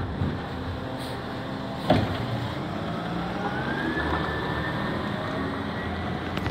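International garbage truck with a Labrie Automizer side-loader arm: the diesel engine runs and a sharp metal clunk comes about two seconds in as the arm sets the emptied cart down and retracts. After that a whine rises in pitch and then holds steady as the truck pulls away down the alley.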